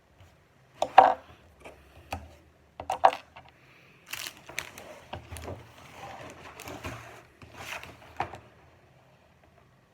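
Small plastic Lego bricks being handled: sharp clicks and rattles, with a stretch of rustling and clattering in the middle.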